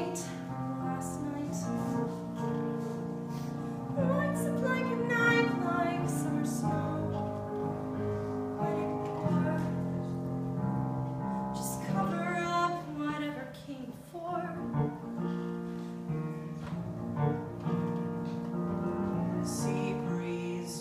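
Piano accompaniment playing a musical-theatre song, with a voice singing in briefly twice.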